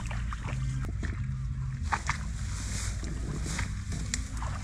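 Water sloshing and splashing in short, scattered splashes over a steady low hum.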